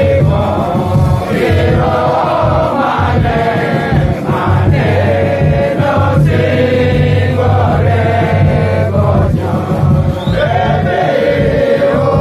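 A group of voices singing a hymn together in short phrases, breaking every second or two.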